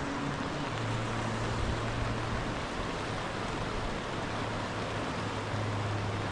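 Steady rushing of river rapids, an even hiss of white water with no breaks. A low, steady hum sits underneath from about a second in.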